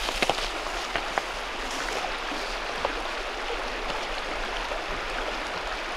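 Shallow creek rippling over stones, a steady rushing. A few sharp clicks of footsteps on loose rocks are heard in the first second or so.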